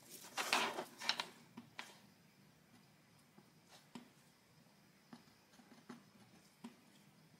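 Quiet handling sounds of hard-wax floor repair. A brief rustling scrape comes about half a second in, then scattered light taps and ticks as a heated wax-melting tool's tip works against the wax bar and the laminate.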